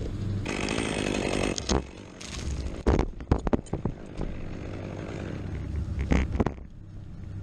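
Chainsaw running for about a second in a pine tree removal, followed by a series of sharp knocks and cracks over a steady low rumble.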